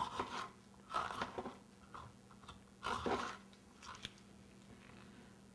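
Chef's knife slicing through a crisp green bell pepper on a wooden cutting board: a handful of separate crunchy cuts, each with a light knock of the blade on the board, thinning out in the last couple of seconds.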